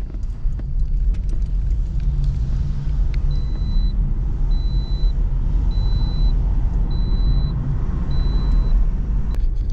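Car driving along a road, heard from inside the cabin: a steady low engine and road rumble. From about three seconds in, a high electronic beep sounds five times, about once a second.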